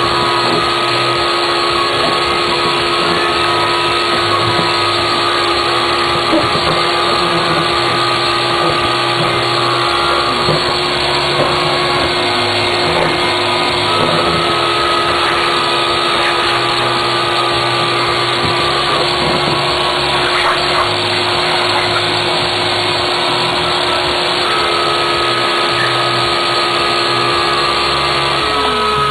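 A handheld power tool running steadily while an engine surface is cleaned. Its pitch drops as it winds down near the end.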